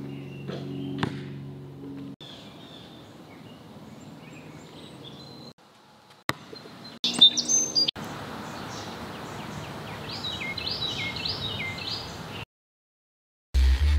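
Outdoor ambience with birds chirping and tweeting, over a low steady hum for the first two seconds. The background changes abruptly a few times, and a heavy low thump comes just before the end.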